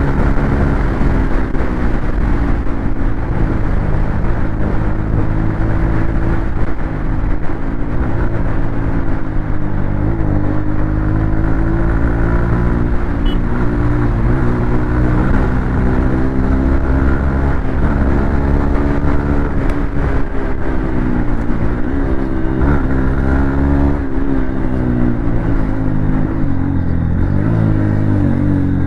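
Honda CB200X's single-cylinder engine running through an aftermarket Akrapovic slip-on muffler, idling with light throttle blips that make the pitch rise and fall gently several times.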